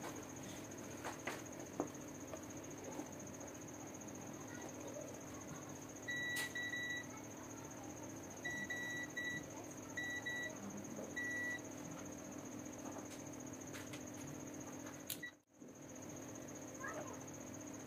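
Digital multimeter in continuity mode giving short, identical high beeps as its probes touch the soldering iron's plug pin and circuit board, each beep signalling a closed circuit. The beeps come in small clusters between about six and eleven seconds in, over a steady faint high whine.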